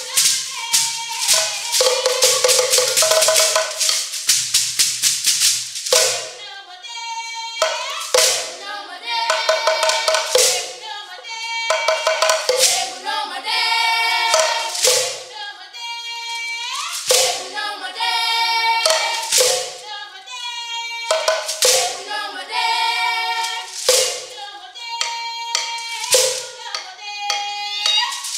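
Sekere beaded gourd rattles shaken fast for the first few seconds. Then a group of voices sings, with the sekere struck in rhythm and a drum beaten with a stick.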